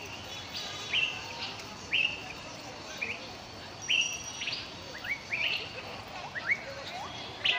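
A bird calling with repeated short, sharply rising chirps, about one a second and coming closer together in the second half, over steady outdoor background noise.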